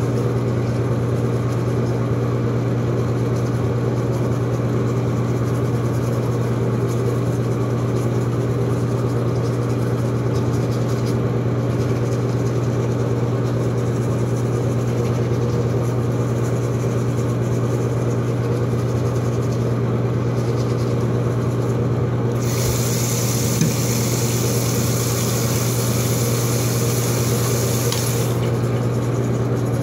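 Steady low hum of a small electric motor running, with a few fainter higher overtones above it. A bright hiss joins in about two-thirds of the way through and stops again about six seconds later.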